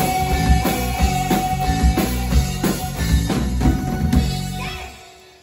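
A live rock band with drum kit and electric keyboard plays the closing bars of a song: steady drum hits under a long held note, then the band stops about four seconds in and the sound dies away.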